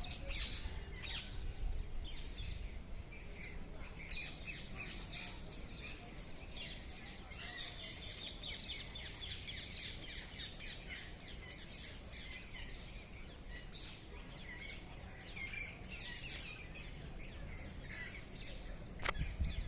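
Several birds chirping and calling over one another, short high chirps throughout, busiest in a dense chorus in the middle, over a steady low rumble. A single sharp click near the end.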